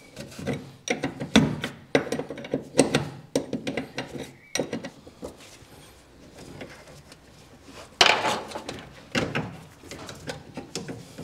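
A wrench clicking and clinking on metal fuel line fittings atop a fuel tank as they are worked loose, in a run of short irregular clicks and knocks with a louder clatter about eight seconds in.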